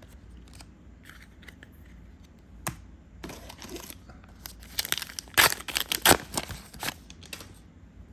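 A trading-card booster pack's wrapper being torn open and crinkled. Light rustles and taps come first, then a run of sharp tearing and crackling from about four and a half to seven and a half seconds in.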